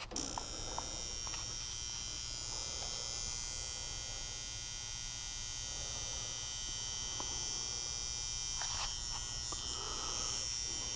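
Furnace fan control center transformer buzzing loudly: a steady, high-pitched electrical buzz made of several tones over a low hum. The technician traces the noise to this transformer, whose internal plates typically go bad.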